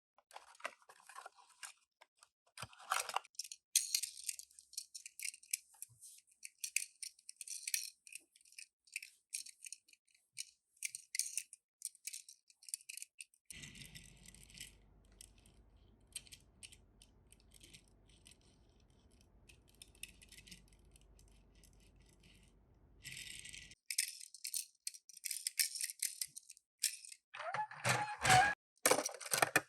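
Toy packaging and small die-cast toy cars being handled: a long run of crinkling, rustling and small rattling clicks, with a low steady hum through the middle and a few louder knocks near the end.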